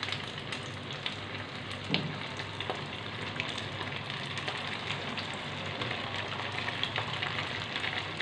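Flour-coated chicken pieces deep-frying in hot oil in a wok on high flame: a steady sizzle with many small crackles and pops, and one louder crackle about two seconds in.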